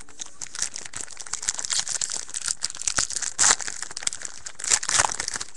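A trading-card pack's wrapper crinkling and being torn open: a dense run of crackles, with louder rips about three and a half and five seconds in.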